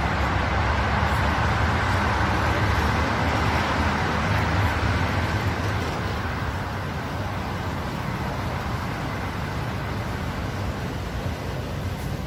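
Steady road traffic noise, a low rumble and hiss. About halfway through it drops to a quieter, steadier indoor hum.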